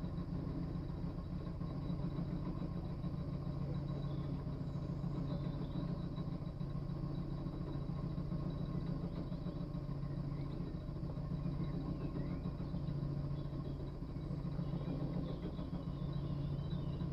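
Narrowboat engine running steadily while the boat cruises, a low, even hum.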